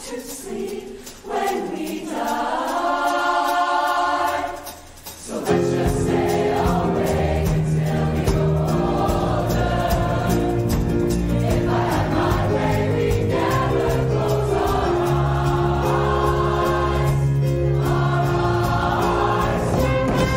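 Show choir singing in harmony, holding a chord in the first few seconds. At about five and a half seconds a loud accompaniment with a bass line comes in, and the choir sings on over it.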